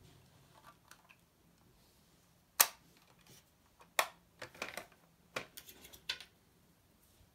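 Clicks and light knocks from a 1:18 Welly diecast Porsche 911 model being handled on a wooden table: a sharp click about two and a half seconds in as a door snaps shut, another a second and a half later, then a quick run of smaller clicks and taps.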